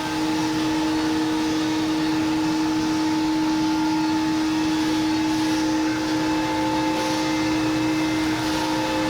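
CNC router spindle running steadily while cutting clear acrylic, a constant high whine over a rushing noise.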